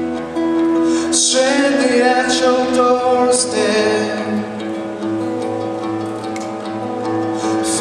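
Acoustic guitar strummed live through a PA, with a male voice singing over it from about a second in.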